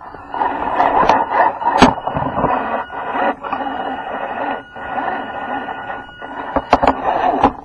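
Small electric motor and gearbox of a radio-controlled scale Jeep Wrangler JK crawler running as it drives over rocks, with the body and chassis rattling and knocking. A cluster of sharp knocks comes near the end.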